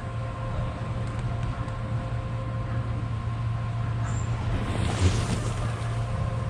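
Steady low machine hum with faint, constant higher tones over a light hiss, holding even throughout.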